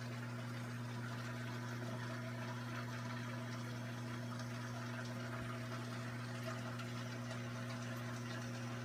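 Saltwater aquarium's pumps and filtration running: a steady low hum with water trickling and splashing underneath.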